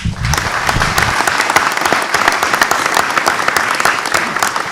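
Audience applauding: dense, steady clapping that breaks out all at once.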